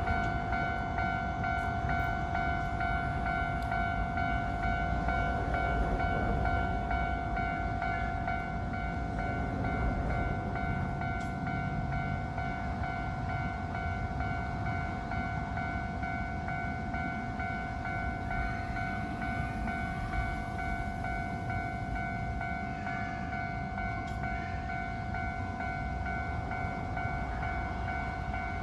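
Japanese railroad crossing's electronic warning bell ringing steadily throughout, over the low rumble of a Keio Line electric train running through the crossing.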